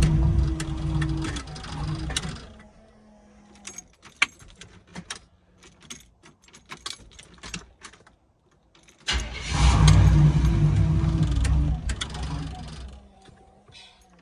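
Pontiac Trans Am engine running, then cutting out about two seconds in. Several seconds of small clicks and key jangling follow, then the engine comes back suddenly about nine seconds in, runs for a few seconds and dies away again near the end.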